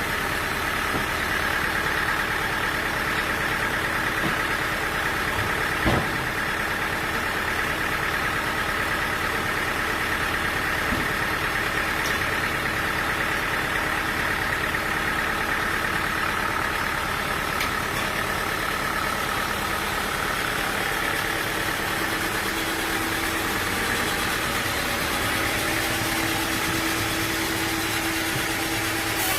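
Sawmill machinery running steadily with a constant hum, and a single sharp knock about six seconds in.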